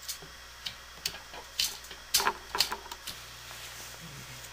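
Irregular sharp clicks and taps of washers and nuts being handled and fitted onto the motor mounting studs of a high-velocity fan's wire grill, thickest in the middle of the stretch.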